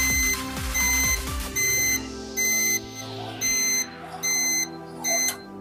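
Timer buzzer of a Hotstarr 9 kg washing machine beeping repeatedly, a high electronic beep about once every 0.8 s, signalling that the wash timer has run down to zero. Background music plays underneath.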